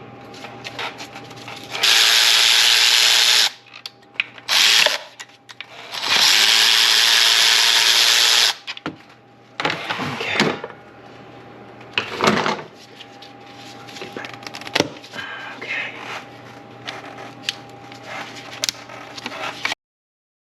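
A power tool runs in two steady bursts, about a second and a half and then two and a half seconds long, with clicks and knocks of tools and parts between and after.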